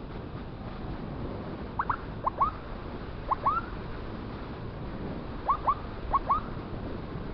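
Electronic siren blipped in short rising chirps, five quick pairs in all, over steady road and wind noise.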